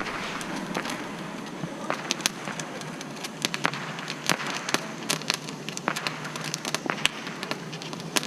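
Consumer fireworks crackling: a steady hiss broken by many irregular sharp pops and crackles.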